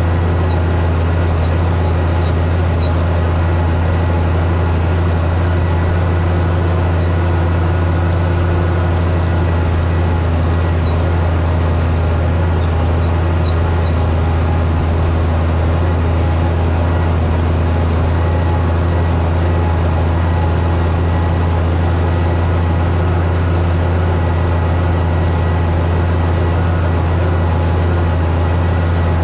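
Oliver 1550 tractor engine running at a steady speed, a constant loud low drone with no change in pitch.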